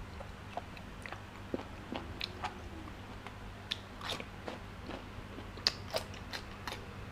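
A person chewing and biting food close to the microphone: irregular wet smacks and clicks, coming thicker in the second half.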